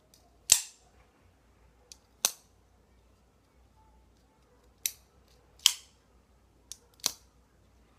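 Ganzo G7531 folding knife's blade being flicked open and snapped shut repeatedly: five sharp metallic clicks a second or two apart, with a few fainter ones between, as the new knife's action is worked in until it runs smooth.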